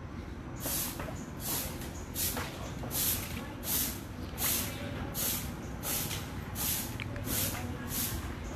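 Short straw broom swishing across the ground in steady strokes, a dry hissing sweep roughly every three-quarters of a second, starting about half a second in.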